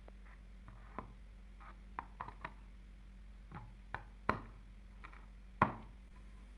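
Scattered light taps and clicks of small objects being handled, about a dozen at irregular intervals, with sharper knocks a little past four seconds and about five and a half seconds in.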